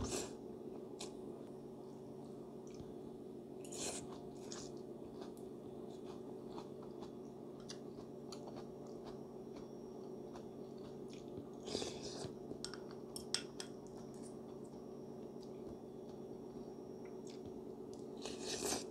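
Close-up mouth sounds of a person eating spicy instant noodles: chewing with small clicks, and a few short slurps about four seconds in, around twelve seconds and at the end, over a steady low hum.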